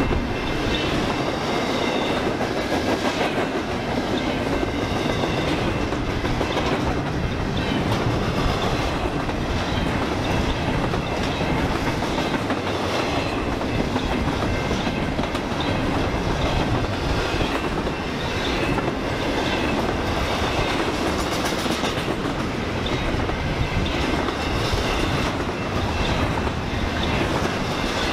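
A BNSF train's cars rolling past at a steady pace, a continuous rumble with the clickety-clack of wheels over the rails and a faint high squeal of wheels at times.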